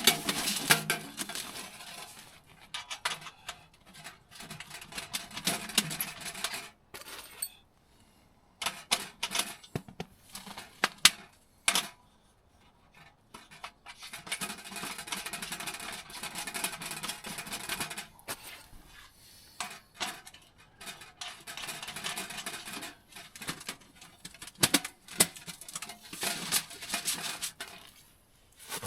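Intermittent handling noises: bursts of rustling and scraping with scattered sharp clicks and light clinks, in between short quiet pauses.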